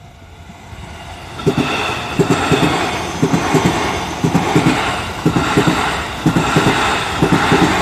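E531 series electric multiple unit passing at speed, its wheels clattering over the rail joints in repeated quick clusters about once a second, the sound building up and turning loud about a second and a half in.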